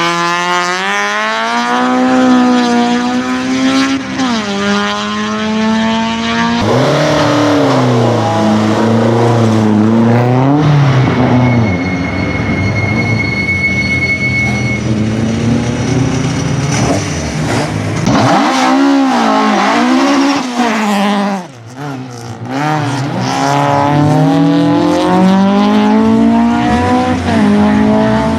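Racing car engine being driven hard on a twisty course: it climbs in pitch, falls away and picks up again many times as the driver accelerates, shifts and brakes. There is a sudden brief lift about three-quarters of the way through.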